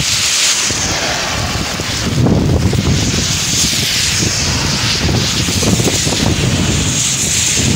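Steady rushing noise of a car driving on a rain-soaked road in heavy rain: a hiss of rain and wet tyres with wind rushing past. Gusty low buffeting of wind on the microphone grows stronger from about two seconds in.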